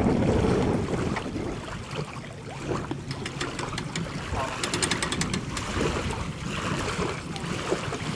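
Wind buffeting the microphone, heaviest in the first second, over lapping water. About halfway through comes a quick run of sharp clicks from the boat trailer's hand winch being cranked and ratcheting. Faint voices sound now and then.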